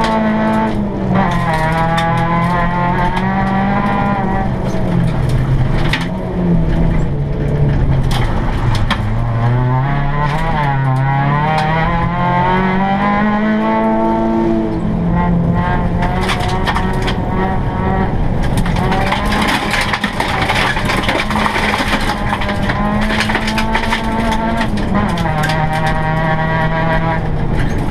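Seat Ibiza GTI rally car heard from inside the cabin, its engine revving hard and dropping back again and again as the driver shifts and lifts for corners, easing off most around the middle. Frequent sharp ticks and knocks from the rough gravel road run through it, thickest in the second half.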